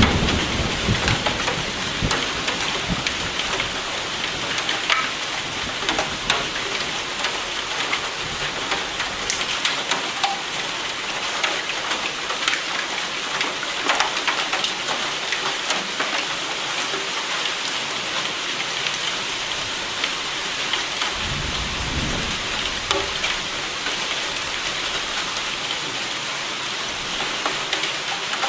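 Steady heavy rain hissing, with many sharp individual drop hits. Low thunder rumbles at the start and again about three quarters of the way through.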